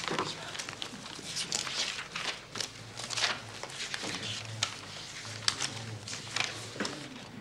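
Paper rustling as pages and sheets in stacks of paper files are leafed through by hand: a quick, irregular run of dry crinkles and page flips, over a faint low hum.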